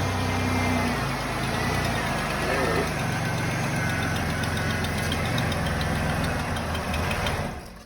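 Supercharged 3800 V6 (L67) of a 2004 Chevrolet Impala SS idling steadily, just brought to life after six months sitting, on a fresh base tune. Faint even ticking rides over it, and the engine sound cuts off near the end.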